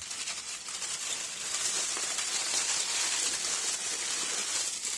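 Aluminium foil rustling and crinkling as it is unwrapped by hand from around a bag of live shrimp. It makes a dense crackle that is heaviest from about a second and a half in until near the end.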